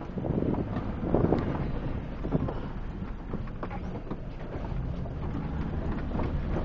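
A 4x4 being driven over desert sand, heard from inside the cabin: a steady low engine and drivetrain rumble with wind noise on the microphone and occasional knocks and rattles from the body.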